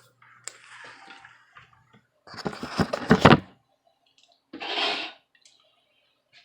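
Blasts of compressed air from a blower nozzle blowing dust out of a laptop's cooling fan: a faint hiss, then a loud blast of about a second starting about two seconds in, and a shorter blast near five seconds.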